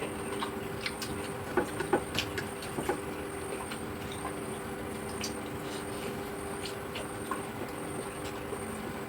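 A steady hum with several small sharp clicks and knocks, a cluster of louder ones about two seconds in.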